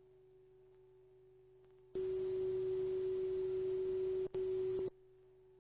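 Steady electronic tone with a low hum from a VHS tape playing back, faint at first. About two seconds in it jumps much louder with hiss, cuts out for an instant, comes back briefly, then drops back to the faint tone.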